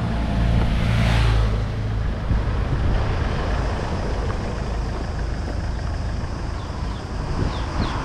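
A motorbike passing close by, its engine loudest about a second in, then fading into a steady background rush.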